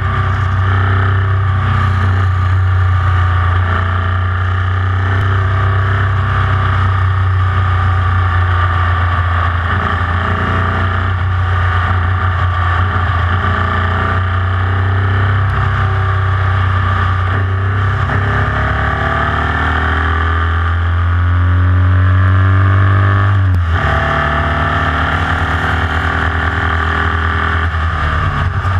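Formula Vee's air-cooled 1200 cc Volkswagen flat-four engine running hard under race load, heard from onboard the car. Late on, the revs climb for several seconds, drop sharply once at an upshift, then climb again.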